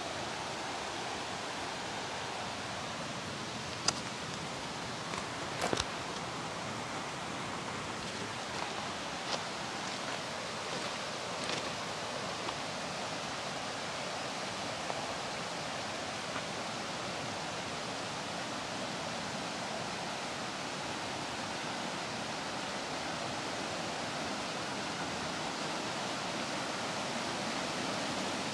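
River rapids rushing steadily over rocks, with a few sharp clicks about four and six seconds in.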